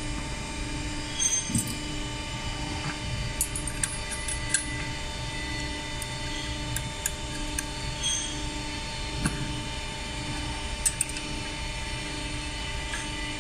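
Steady machine hum with a pulsing low drone, and scattered light clicks and taps of metal parts being handled.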